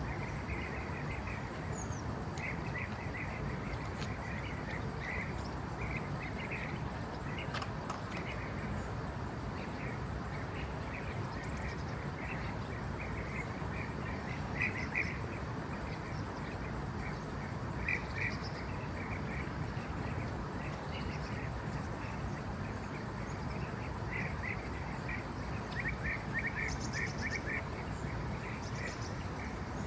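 Short chirping animal calls, in small clusters every second or two and louder in a run near the end, over a steady background hiss.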